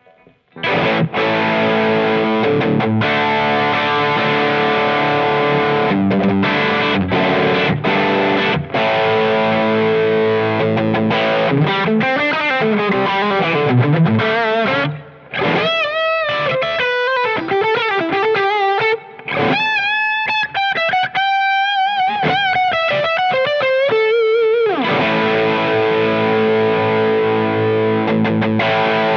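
Umeda UST QM24 electric guitar played through heavy distortion on its bridge humbucker: dense, sustained rock rhythm chords. About twelve seconds in it switches to a lead line with string bends and wide vibrato, which ends in a downward slide back into ringing distorted chords near the end.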